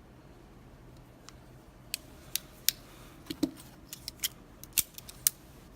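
Small metal clicks and taps from a Russwin mortise lock being taken apart, with a screwdriver working at its flathead retaining screw. There are about ten sharp, irregular clicks starting about two seconds in, with one duller knock midway.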